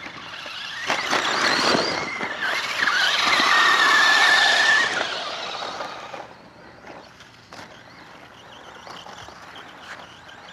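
Electric RC racing trucks running on a dirt track: a high-pitched motor and gear whine with tyre hiss rises loud as one passes close, from about a second in to about five seconds, then falls away to a fainter whine with a few sharp knocks.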